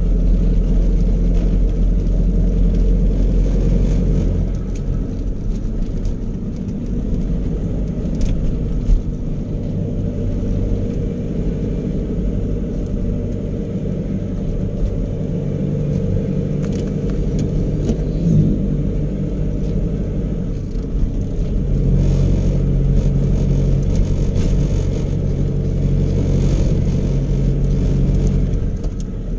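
Car engine and road noise heard from inside the cabin while driving: a steady low rumble whose engine pitch shifts a few times as the car changes speed.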